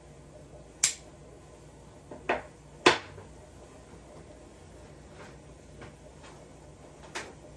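A handful of sharp clicks and clinks from a hand-held lighter being worked and put down while a tobacco pipe is lit; the loudest comes about three seconds in, with a fainter one near the end.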